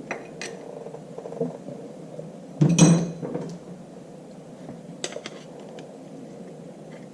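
Steel hand tools clinking against the tractor's metal parts while working at a lock-washer tab: a few light clicks, then one loud clank with a short metallic ring about three seconds in, and a couple more light clicks later.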